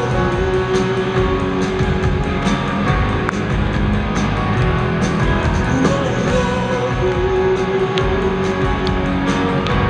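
Live rock song played loud through a concert PA: a band with strummed guitar and drums, and a man singing long held notes into the microphone.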